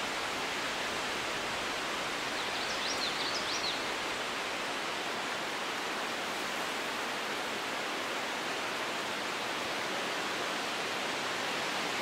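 Wind blowing through the leafy tree canopy, a steady even hiss. A brief run of high chirps about three seconds in.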